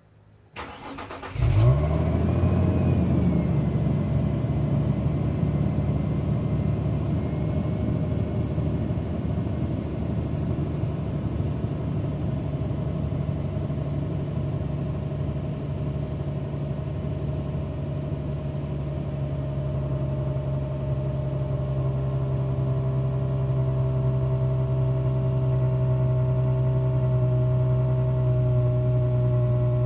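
Nissan Stagea M35 250RS 2.5-litre V6 starting up through its stock muffler: the engine catches about a second and a half in, flares briefly, then settles into a steady idle.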